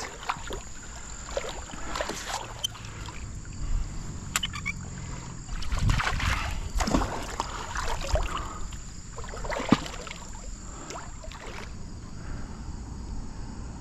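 Water sloshing and splashing around a kayak in a shallow river, with irregular swishes and a few sharp knocks against the hull.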